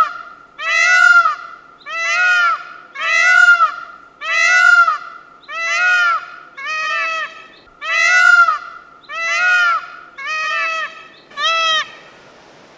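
An animal calling over and over, about once a second: a dozen or so near-identical calls, each rising and falling in pitch, the last one fading out near the end.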